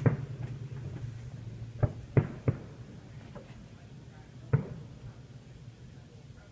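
Fireworks bursting: five sharp bangs, three close together about two seconds in and the last, trailing off briefly, near the end.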